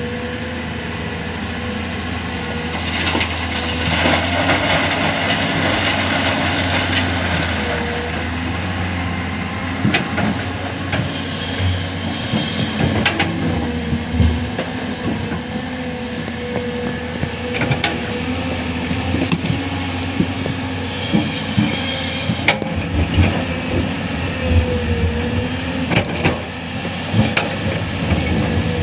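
An excavator's diesel engine running steadily under load with a held whine, while its bucket works rock, giving sharp clanks and knocks that come more often in the second half.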